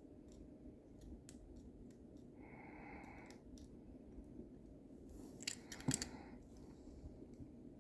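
Lever lock being picked: faint metallic clicks and scraping of the pick and turning tool inside the lock, with a short run of louder metal clicks about five to six seconds in.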